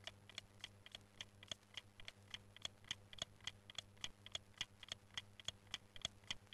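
Clock movements ticking: a faint, rapid, even train of ticks, several a second, alternating stronger and weaker, over a low steady hum.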